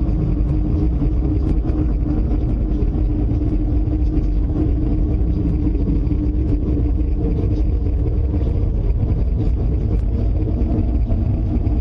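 A steady, loud low rumble with a constant drone running through it, unchanging throughout.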